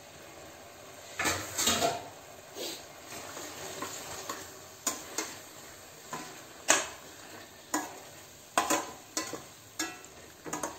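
A spatula scraping and tapping against a stainless-steel kadhai as vegetables are stirred into a hot, simmering tomato-spice masala, with a faint sizzle underneath. The strokes come irregularly, about one a second, and are loudest a little over a second in.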